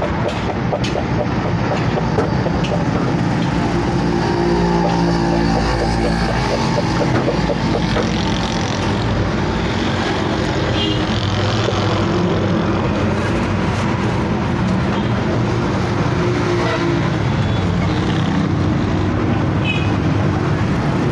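Steady street traffic noise, with the engines of passing vehicles humming in and out.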